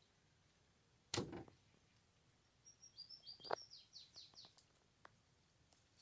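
A short thump about a second in, then a bird calling a quick run of about eight short, high, falling chirps.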